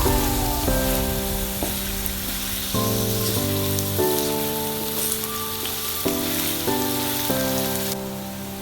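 Background music of sustained synth chords that change about every second, over a steady hiss of lady finger (okra) frying in oil.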